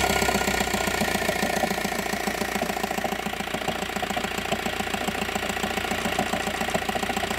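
2009 VW T5 van engine idling steadily, still cold, just after being restarted. The van has a cold knock that the mechanics trace to the engine bay and suspect comes from a failing dual-mass flywheel.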